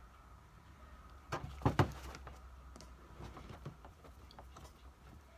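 Small clicks and knocks of hand work with a screwdriver on a plastic knife sheath screwed to a hat's bill, the loudest a quick pair of knocks about a second and a half in, then lighter scattered clicks.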